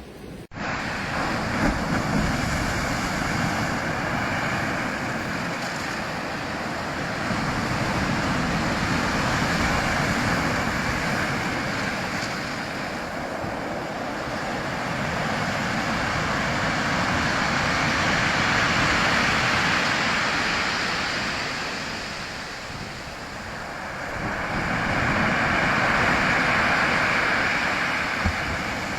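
Ocean surf: waves breaking and washing in, a steady rush that swells and fades in three slow surges.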